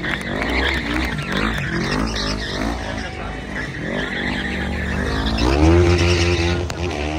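Quad bike engines revving up and down over and over while drifting, with tyres skidding on the asphalt. The longest and loudest rev comes about six seconds in.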